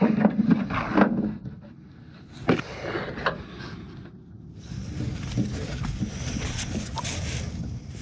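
Knocks and metal scrapes as a loose spare drive belt is pulled out of a furnace blower wheel and the pulley and bearing bracket are handled. About halfway through, a steady rushing noise from the blower sets in and holds.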